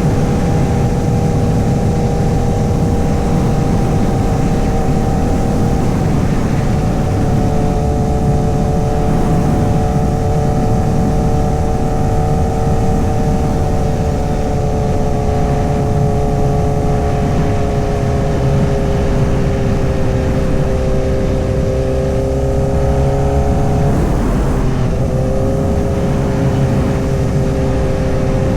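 Honda CBR1000RR's 999cc inline-four engine running at a steady cruise, its note sagging slowly lower for most of the stretch, with a brief break in the note near the end before it settles again, over a dense low rumble.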